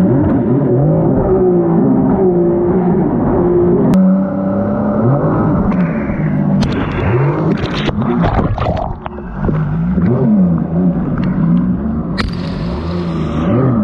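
Four-stroke Yamaha Superjet stand-up jet ski engine running under throttle, its pitch swinging up and down again and again as the rider works it. Rushing, hissing bursts come in the middle and again near the end.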